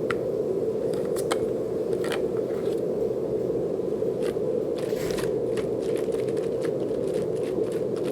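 Brown noise: a steady, low rushing hiss at an even level, with scattered faint clicks and crackles over it.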